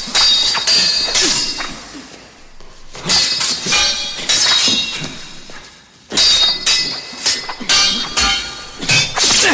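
Steel sword blades clashing in three quick flurries of several ringing strikes each, with short pauses between the exchanges.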